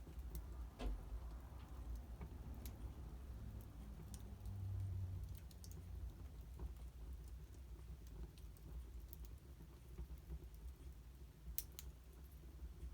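Wood fire burning in a fireplace, crackling faintly with scattered, irregular pops over a low rumble; one sharper pop comes near the end.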